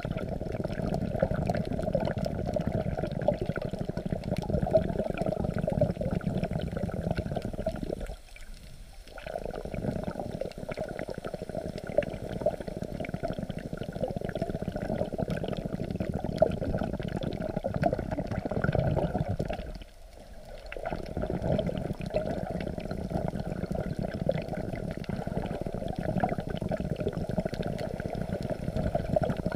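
Muffled underwater wash of sea water sloshing around a camera held just below the surface by a swimmer, a steady churning noise. It briefly drops away twice, about eight and twenty seconds in.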